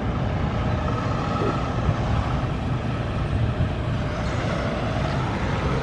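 Steady low rumble of traffic and vehicles, with a faint steady hum over it.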